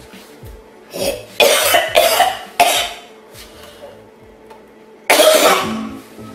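A young man coughing hard: a run of four harsh coughs about a second in, then one longer cough near the end. The coughing comes right after a mouthful of an extremely sour drink.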